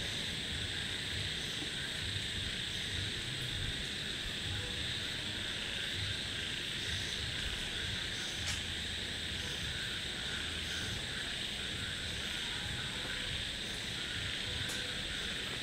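Steady night-time chorus of insects, a continuous high-pitched drone that never lets up, with a few faint clicks.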